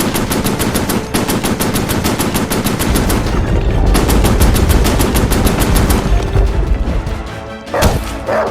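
Rapid machine-gun fire sound effect, about six or seven shots a second in long bursts, with a deep rumble under it in the middle stretch. The firing stops about six seconds in, and a few separate sharp sounds follow near the end.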